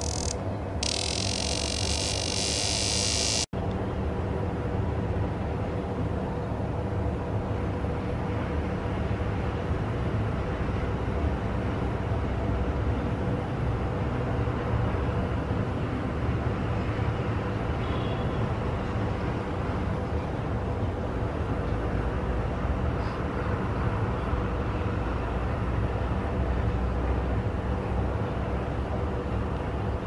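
A cicada's loud buzzing song, broken briefly about half a second in, cut off suddenly a few seconds in; after that only a steady low background rumble, with no insect song.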